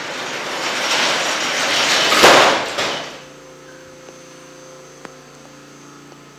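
Rushing air noise on the phone's microphone as it swings, building to a peak a little over two seconds in and falling away about a second later. After that a steady low hum.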